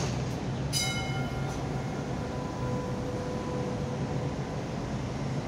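Hong Kong Light Rail Phase 1 car pulling away from the platform, with a steady low hum under everything. A single bright ringing tone sounds about a second in and fades, then a steady whine comes up midway as the car moves off.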